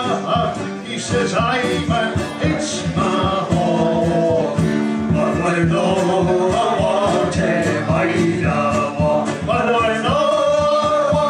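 A live Scottish folk song: men singing to a strummed acoustic guitar and a steady bodhrán beat.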